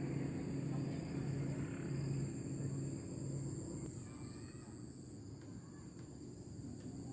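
Outdoor rural ambience: a steady high-pitched insect buzz, with a low hum that fades away about three seconds in.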